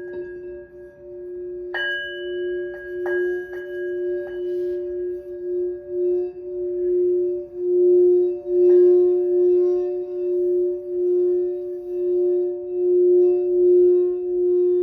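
Singing bowls: several bowls struck a few times in the first few seconds, their higher tones ringing on over a steady low hum. The low hum swells and fades in a regular pulse throughout.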